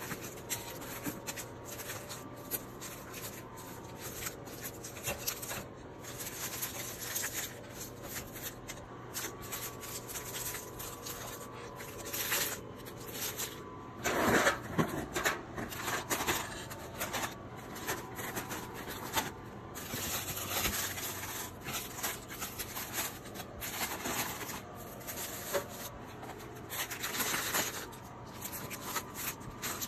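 Snack packets and plastic wrappers rustling and crinkling as they are handled and set on a snack cart, with scattered light clicks and taps. The crinkling is loudest around the middle.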